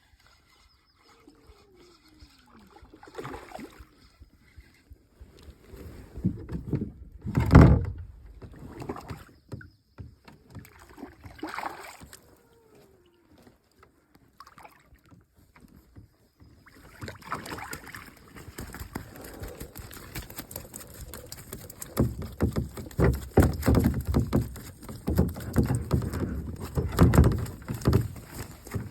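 Water splashing and sloshing around a canoe, with knocks against the hull. One sharp, loud thump comes about seven seconds in, and the splashing turns busy and continuous over the last ten seconds.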